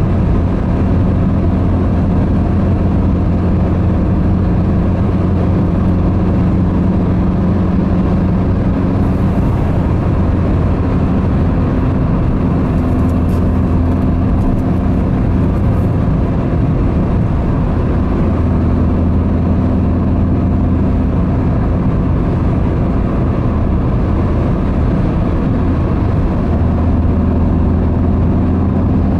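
Steady low engine drone with tyre and wind noise inside a car's cabin cruising at motorway speed. The engine note shifts slightly in pitch a few times.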